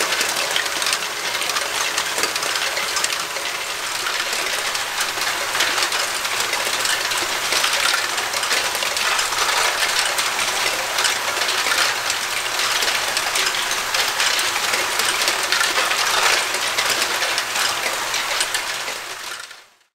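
Lego Great Ball Contraption modules running together: a dense, steady clatter of many small plastic balls rolling, dropping and tapping on Lego parts, over the whir of the motor-driven mechanisms. The sound fades out near the end.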